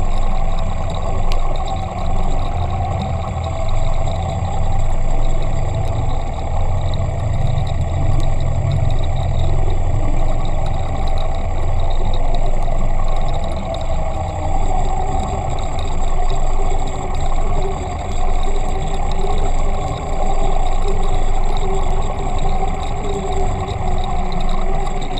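Steady drone of a running motor heard through the water by an underwater camera: a low hum under a constant whine, with the hum stronger in the first half.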